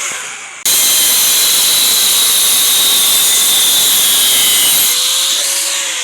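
Power tool working steel: a harsh, steady hiss that starts abruptly about half a second in. Near the end it fades while a falling hum winds down.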